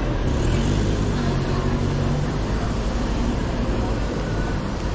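Steady low engine hum of a motor vehicle close by, over the general noise of a busy street.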